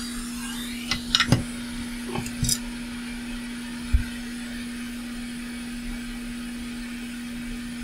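Steady whir of a hot air rework station's blower, with a constant hum under it. A few light clicks of metal tools come about a second and two seconds in, and there is a soft knock about four seconds in.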